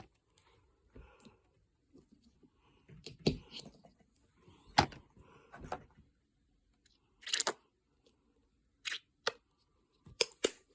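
Handling noises of a small container of slime colouring being opened: scattered sharp clicks, taps and scrapes, several seconds apart, with a quick cluster near the end.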